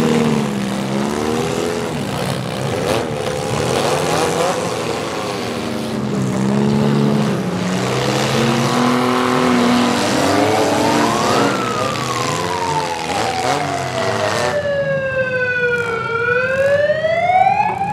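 Several demolition derby cars' engines running and revving against each other, with a few knocks of cars hitting. In the second half a single high whine rises, sinks slowly over several seconds, then climbs again near the end.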